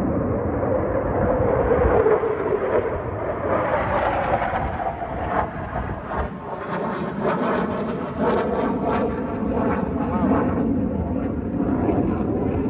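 F-35 Lightning II fighter jet, powered by its F135 engine, passing low overhead with loud jet noise throughout, its pitch falling as it goes by.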